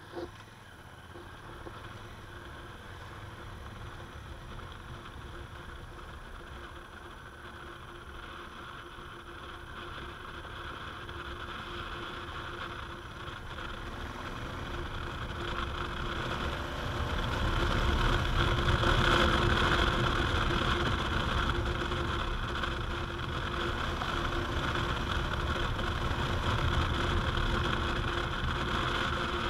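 Honda Africa Twin's parallel-twin engine running under way while the motorcycle gathers speed, with wind and road noise building until about two-thirds of the way through, then holding steady.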